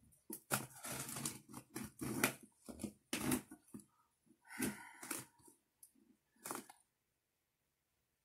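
Scissors cutting through the packing tape along the seam of a cardboard shipping box: a run of irregular rasping cuts and tearing scrapes that stops about two-thirds of the way through.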